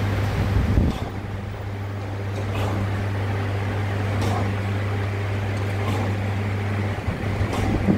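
Freeport surface grinder running: a steady machine hum, with a faint swish recurring about every two seconds.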